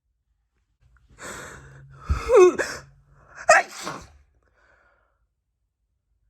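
A woman sneezing twice, about a second apart, after a drawn-in, breathy build-up. These are the wet sneezes the video is about.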